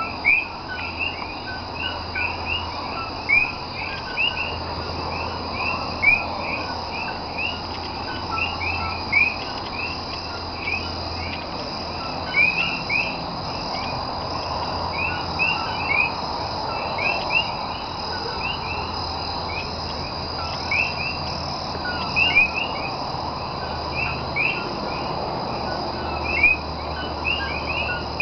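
Chorus of common coquí frogs: many overlapping two-note "co-kee" calls, each a short low note followed by a sharply rising higher one, several calls a second, over a steady high-pitched drone.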